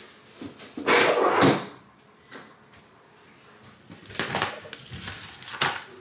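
A refrigerator drawer slides with one loud sliding rush about a second in. A few short knocks and clatters follow near the end as things are handled.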